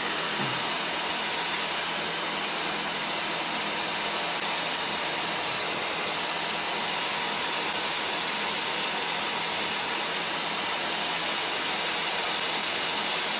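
Steady cockpit noise of a Czech Sport Aircraft SportCruiser light-sport plane in cruise flight: an even hiss of engine and airflow with a faint steady hum.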